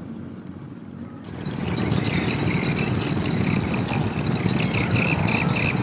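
A steady low rumble swells up about a second in and holds. Behind it runs a high, steady insect trill and a short chirp repeating several times.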